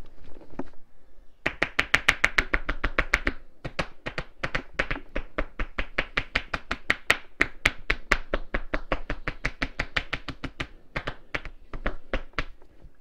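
Rapid percussive massage strokes: hands striking the body in quick chopping blows, about eight strikes a second, with a short break about three and a half seconds in.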